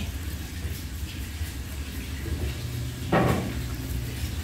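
Kitchen knife working a gray mullet fillet on a plastic cutting board, over a steady low hum, with one brief louder sound about three seconds in.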